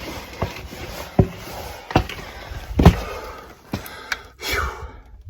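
A hiker's footsteps on the mountain trail, a thud about every 0.8 s, over a steady rustle of handling noise.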